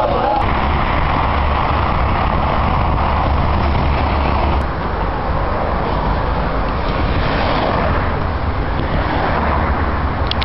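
A moving coach bus: steady low engine rumble with road and traffic noise, the low rumble easing slightly about halfway through.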